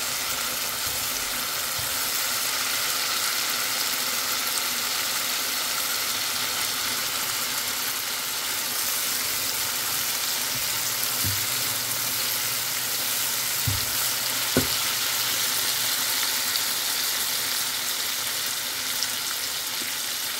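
Onion and spice masala sizzling steadily in a nonstick frying pan on medium heat while it is stirred with a silicone spatula, a little water added so the spices don't burn. A few soft knocks come near the middle.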